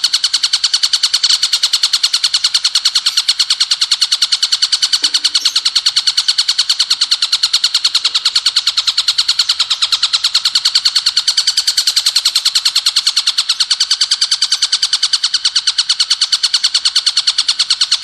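Ciblek gunung, a prinia, singing in the 'bren' style: a loud, unbroken machine-gun trill of very fast, evenly repeated high notes that runs on without a pause.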